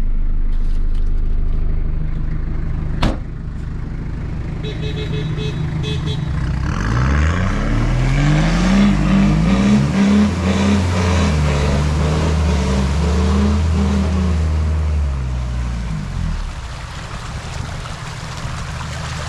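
A 4WD's diesel engine running, then revving hard, rising about a third of the way in and swinging up and down several times before settling back near the end.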